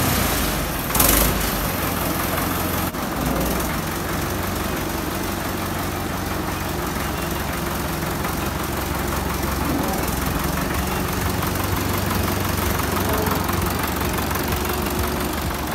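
1970 Belarus tractor's four-cylinder diesel engine running at a steady idle, with a short loud burst about a second in.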